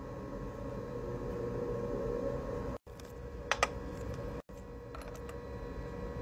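Light metal clicks and clinks as a silver coin and a steel die are handled and set in place, with two sharp clinks about three and a half seconds in and a few fainter ticks later, over a steady low hum.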